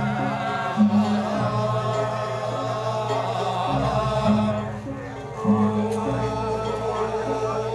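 Music with chanting voices, over sustained low notes that change pitch in steps every second or two; it briefly drops in level about five seconds in.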